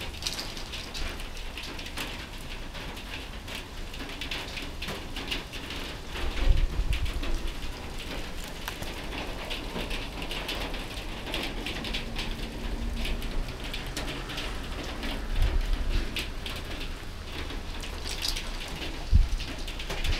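Light rain pattering as a steady stream of small clicks, with a few dull low thumps about six seconds in, around fifteen seconds and near the end.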